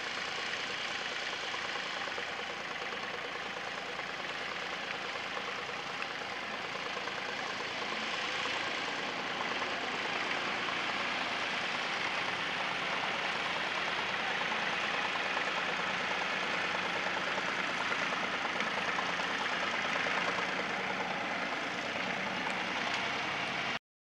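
Fordson Dexta tractor's engine running steadily as it pulls a mounted plough through the soil, growing a little louder as the tractor comes closer.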